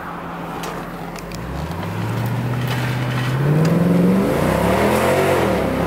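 Mercedes-Benz S63 AMG's 6.2-litre V8 accelerating hard from low speed with traction control off, heard from inside the cabin. The engine note rises and grows louder from about a second and a half in, dips briefly in pitch near the end, then climbs again. The tyres grip without spinning.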